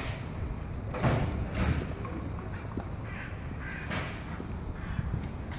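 Several short bird calls over a steady low background noise.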